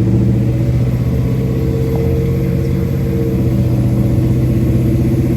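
Vehicle engine running steadily at constant revs while driving, with an even low hum and no revving.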